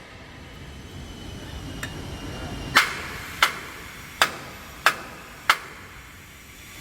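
Hammer striking metal: a light tap, then five sharp blows at an even pace, about two-thirds of a second apart, each ringing briefly.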